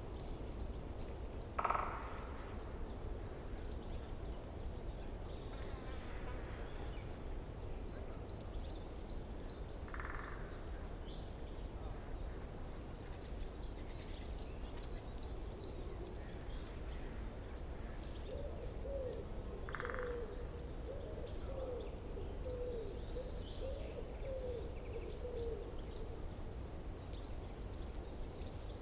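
Forest stream running steadily. Over it, a bird repeats a short phrase of rapid high notes every few seconds, and in the second half a string of short low hooting notes sounds.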